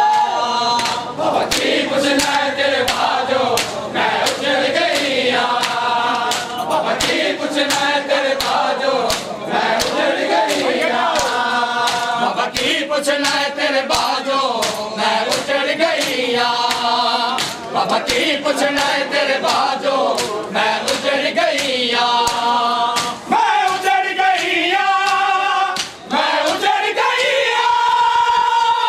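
Crowd of men chanting a Punjabi nauha (mourning lament) together, with a steady rhythm of hand slaps on bare chests (matam) beating time.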